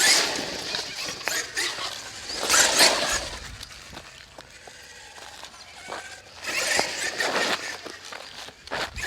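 Traxxas X-Maxx RC monster truck's tyres skidding and scrubbing across pavement as it slides, in three separate bursts: at the start, about two and a half seconds in, and near six and a half seconds.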